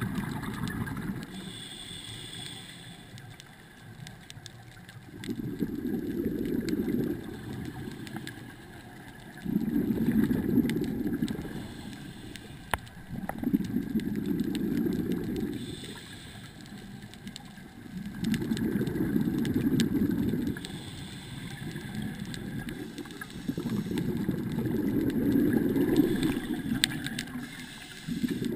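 Scuba diver breathing through a regulator underwater: exhaled bubbles rumble out in a burst about every four seconds, each lasting one to two seconds, with quieter stretches between.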